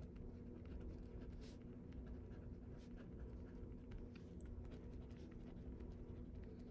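Faint scratching of a pen writing on paper, in short irregular strokes, over a low steady hum.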